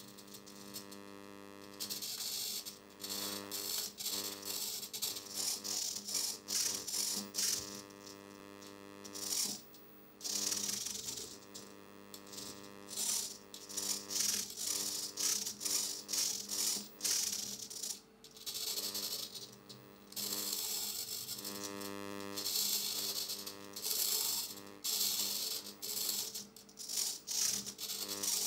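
Background music with a steady synth tone, over short, irregular bursts of whirring from the hobby servos of a pan-tilt camera mount as they start and stop, turning the camera to follow the head tracker.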